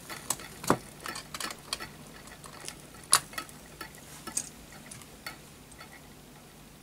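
Scattered light clicks and ticks, several a second at first and thinning out toward the end, from a small brass Heron steam engine running while its fuel jar and lighter are handled beside it.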